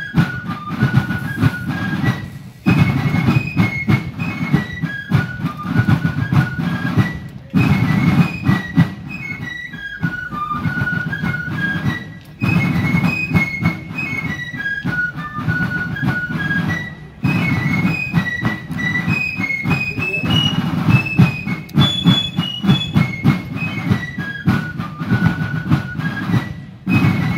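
Fife and drum corps playing a Revolutionary War-era tune: several fifes in unison carry a shrill, high melody over rapid snare drum rolls and strokes. The tune runs in phrases of about five seconds, with a brief dip between each.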